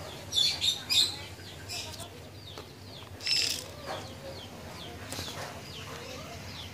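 Stiff stamp album pages rustling and flapping as a page is turned, in a few short bursts near the start and one a little past the middle, with small birds chirping faintly in the background.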